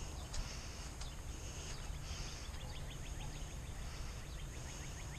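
Outdoor ambience in the rain: a steady low rumble and a steady high hiss, with a bird's rapid trill of short chirps starting about halfway in.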